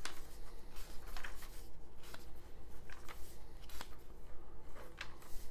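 Paper pages of a small booklet being turned and handled: a series of short rustles and soft flicks as the pages move under the fingers.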